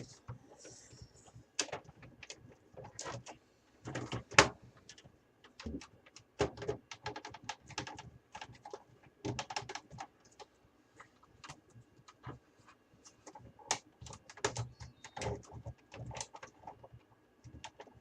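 Irregular clicks, taps and scrapes of hard plastic and sheet metal as a tight-fitting USB front-panel port unit is worked into a desktop PC case's drive bay. The clicks come a few a second, with several louder knocks, the strongest about four seconds in.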